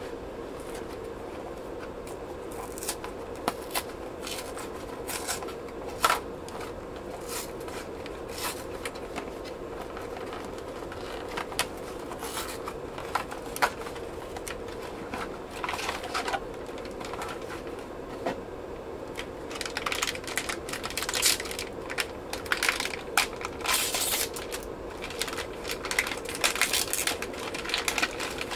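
Clicks, rattles and scrapes of plastic parts being handled as an ink cartridge is changed in a large-format HP poster printer, over a steady hum. The handling grows busier about two-thirds of the way through.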